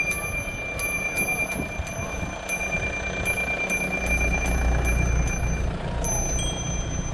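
Riding on a road bicycle: low wind and road rumble that swells in the middle, under a steady high-pitched whine and irregular light ticking, a few per second.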